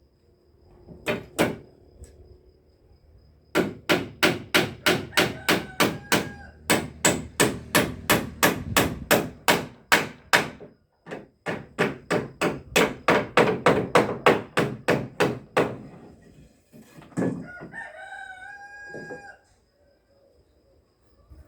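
Hammering on wood: two single blows, then two long runs of quick, even strikes, about three or four a second. Near the end a rooster crows.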